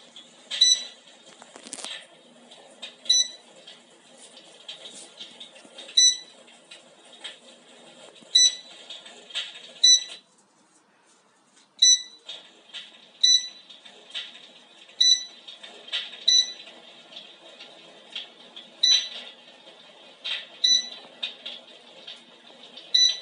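An electric fireplace's built-in fire sound effect: irregular crackles and sharp pops, some with a short beep-like ring, over a steady hiss. It cuts out for about two seconds near the middle, then resumes.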